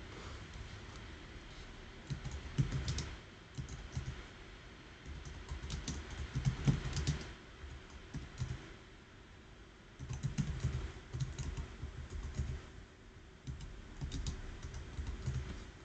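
Typing on a computer keyboard: several bursts of rapid key clicks with short pauses between them.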